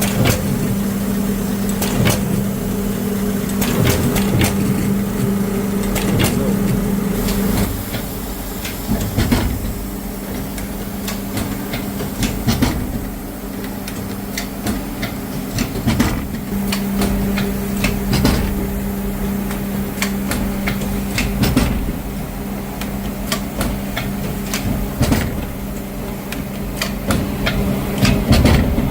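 Zipper-making factory machinery running: a steady mechanical hum under rapid, irregular clicking and knocking. The hum drops out for several seconds about a third of the way in, then returns.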